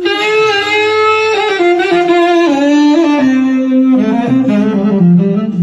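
Saxophone playing a slow phrase that steps down in pitch note by note, with vibrato, settling onto a low held note near the end.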